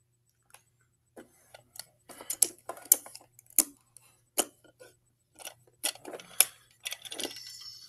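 Irregular hard plastic clicks and clacks as the toy garbage truck's side-loader arm and a toy bin are handled, ending in a short rattling scrape.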